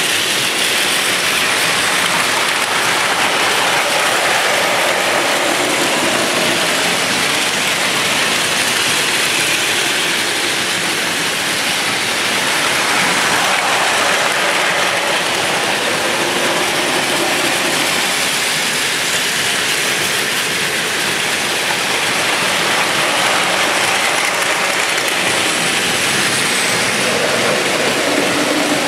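Several battery-powered Plarail toy Shinkansen trains running together on plastic track: a steady mix of whirring gear motors and clattering wheels.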